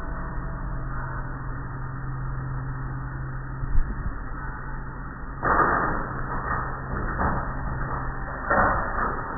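Automatic tunnel car wash running, heard from inside a car: a steady machinery hum, a single thump about four seconds in, and loud bursts of swishing from the wash's spray and cloth strips about five and a half seconds in and again near the end.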